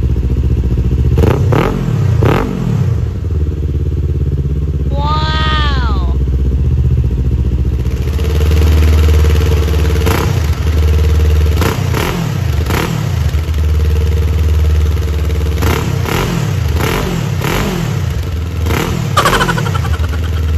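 Kawasaki Z400's parallel-twin engine through an SC Project slip-on exhaust, idling with sharp throttle blips. Two quick revs come early with the dB-killer insert removed. Then, after a cut, it idles and is blipped about seven more times with the dB killer fitted. A brief whistle-like tone sounds about five seconds in.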